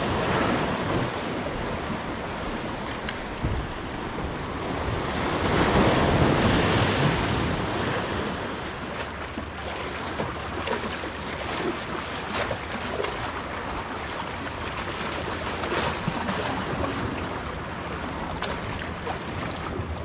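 Sea waves washing and splashing against jetty rocks, with wind on the microphone; one surge swells louder about six seconds in.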